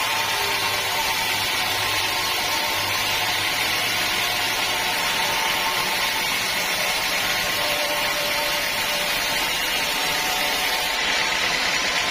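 Sawmill saw and its drive engine running steadily, a constant even noise with no breaks.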